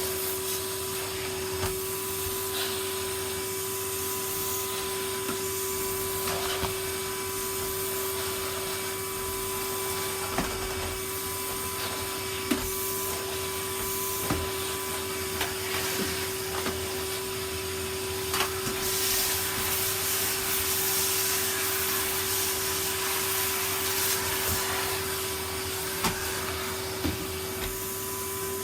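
Numatic Henry cylinder vacuum cleaner running steadily over carpet, its motor holding one even whine, with scattered short clicks and knocks from the nozzle and from debris being sucked up.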